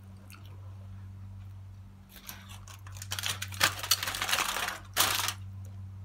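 Aluminium foil crinkling as it is handled and pressed over a dish, in quick rustling bursts for about three seconds, loudest near the end, over a steady low hum.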